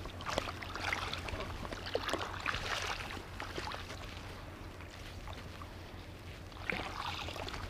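Faint small clicks and rustles with light water sounds as a fishing line is pulled in hand over hand from the water while a hooked carp is played, over a low steady rumble of handling noise from a camera held in the mouth.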